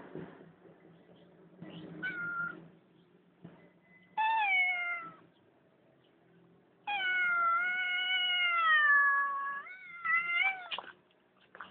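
Cat yowling in drawn-out calls that fall in pitch, the longest wavering for about three seconds, followed by a few quick short calls.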